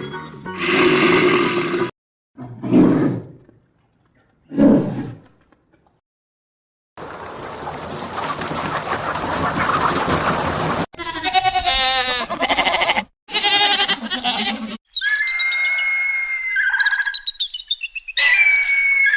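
A run of short, separate animal calls and roars, each abruptly cut, with silent gaps between them.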